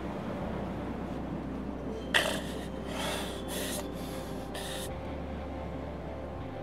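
A man's few sharp, noisy breaths or sniffs in the middle, the first one loudest, over a low steady hum.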